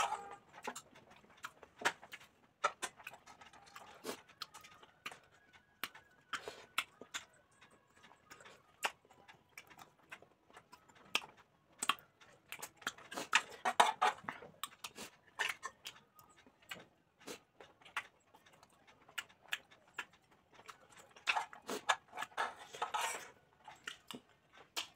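Close-up chewing and lip-smacking of a person eating rice and pork, in irregular bursts of wet mouth clicks, with now and then a light clink of a spoon on a plate.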